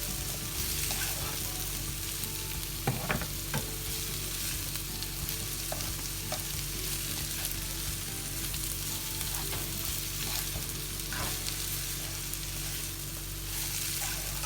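Chopped onions sizzling in hot oil with a ground pepper, cumin, ginger and garlic masala while they are stirred in the pan. A few sharp clicks of the spoon against the pan stand out over the steady frying hiss.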